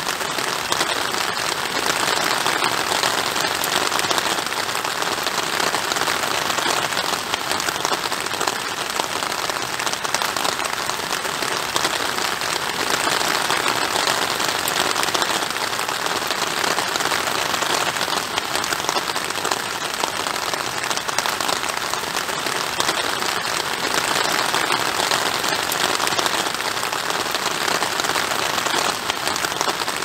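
Steady rain: a dense, even patter of many drops that keeps up without letting up.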